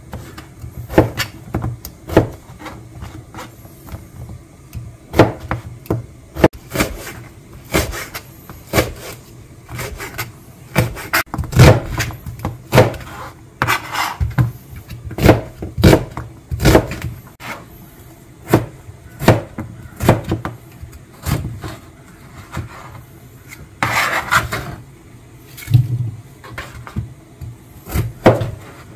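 Chef's knife slicing through zucchini, onion and potato and knocking on a plastic cutting board, a sharp tap about once or twice a second. About three-quarters of the way through there is a longer scrape of the knife across the board.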